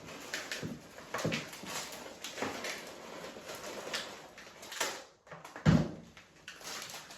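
Irregular scrapes and knocks of a spoon working cookie dough in a mixing bowl, with one louder knock near the end.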